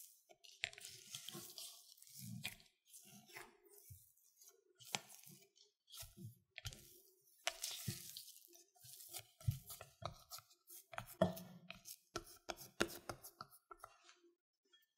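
Spatula pressing and smearing stiff butter-cookie dough against the side of a glass bowl: irregular scrapes, squishes and soft knocks, the kneading that gives the cookies a smooth surface.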